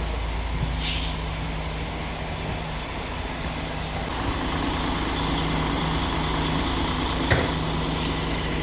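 Coach's diesel engine idling, a steady low hum, with a short hiss about a second in and a single sharp click near the end.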